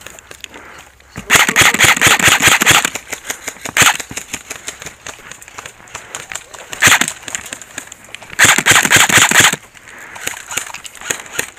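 Airsoft rifles firing full-auto in rapid bursts of sharp clicks. A long burst comes about a second in, short bursts follow near the middle, and another long burst comes near the end.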